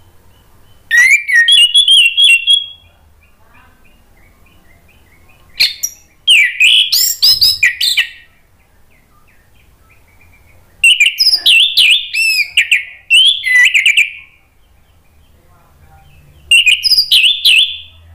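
Orange-headed thrush (anis merah) singing in four loud bursts of rapid, varied whistled phrases, with faint chirping between the bursts.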